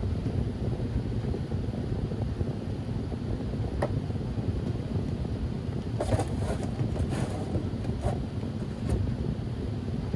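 Steady low rumble of the running air-conditioning unit, with a few knocks and rustles of handling from about four seconds in.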